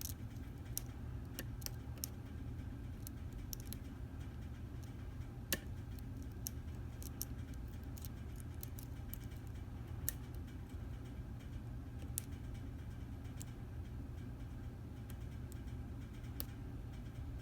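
Lock pick and tension wrench working the pin stack inside a Stanley 24/7 padlock's keyway: scattered faint metallic ticks and clicks at irregular intervals, the sharpest about five and a half seconds in and again around ten seconds, over a steady low hum.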